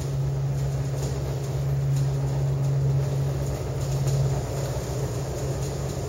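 Running noise inside a descending aerial tramway cabin: a steady low hum over a rushing rumble. The hum eases about four and a half seconds in.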